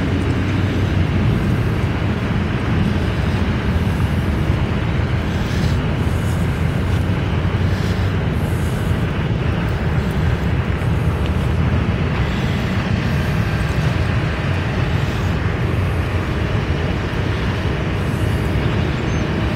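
Steady low rumble of road traffic, an even noise with no distinct events.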